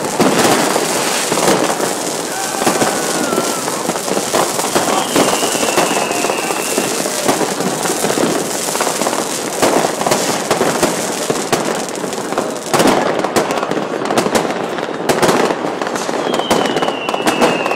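Fireworks going off without pause: many firecrackers and rockets crackling and banging at once, in a thick, continuous barrage of sharp cracks. Twice, a high whistle slides down in pitch over about two seconds, once near the middle and once near the end.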